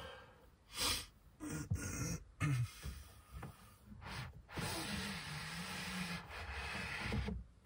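A man waking in bed: a few sharp breaths and snorts as he stretches, then a long drawn-out yawn with a wavering groan in it, which cuts off near the end.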